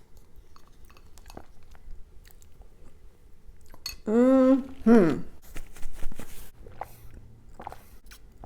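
Close-miked mouth sounds of a person chewing and crunching food, with many small crisp crunches. About four seconds in comes a short closed-mouth hum in two parts, the second falling, like "mm-hmm".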